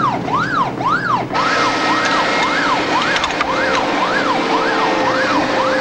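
Warship's air-raid alarm sounding: an electronic siren whooping up and down about twice a second. A steady rush of noise comes up behind it just over a second in.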